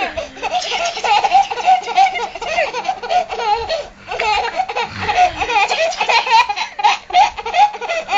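Baby laughing in quick, repeated high-pitched bursts, with a short break about four seconds in.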